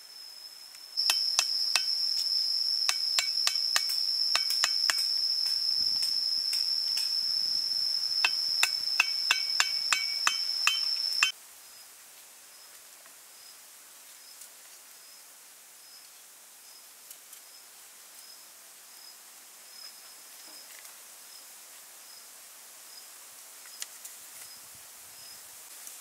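Insect giving a loud, steady, high-pitched trill, mixed with a string of sharp clicks. About 11 seconds in it cuts off suddenly, leaving a faint high chirp repeating about once a second.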